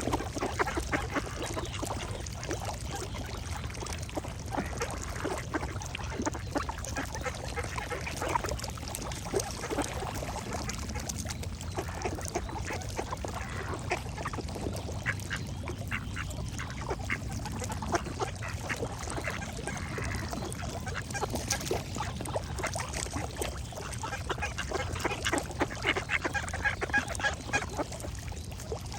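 Ducks quacking in many short, rapid calls, with birds singing faintly behind them, over a steady low background hum.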